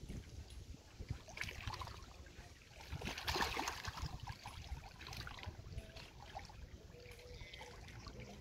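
Wind buffeting the microphone over small waves lapping at the lakeshore, with a louder rush of water about three seconds in.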